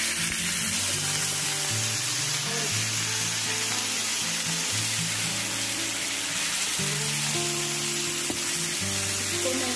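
Yogurt-marinated chicken pieces sizzling steadily as they fry in hot oil in a nonstick pan. Background music with sustained low notes plays throughout.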